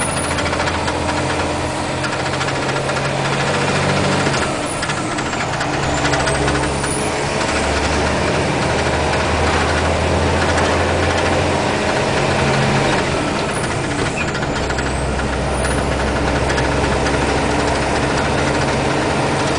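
MAZ tanker truck's diesel engine running under way, heard from inside the cab along with road noise. The engine's low hum shifts in pitch several times, dropping and rising again around the middle and near the end.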